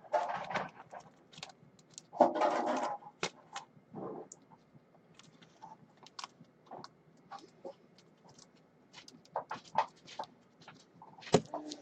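Plastic team bags and trading cards being handled and stacked on a table: crinkling rustles and scattered small clicks and taps, with a longer rustle about two seconds in.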